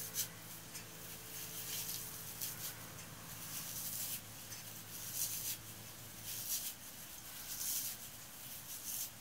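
Sun-dried field horsetail crackling and rustling as it is crumbled by hand and dropped into a stainless steel mesh tea strainer, in several short, crisp bursts.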